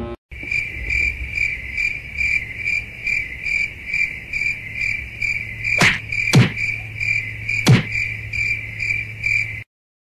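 Cricket chirping steadily, about three chirps a second, over a low hum. Three quick falling whooshes come in the second half. The sound cuts off suddenly near the end.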